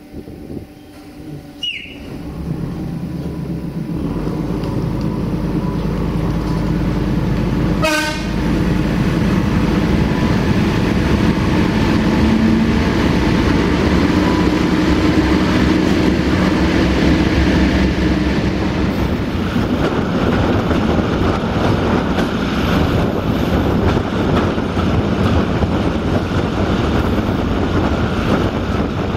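Malaxa diesel railcar pulling away, heard from its window: the engine and running noise build up over the first several seconds, with a short horn toot about eight seconds in. After that comes a steady loud rumble of the railcar running along the track.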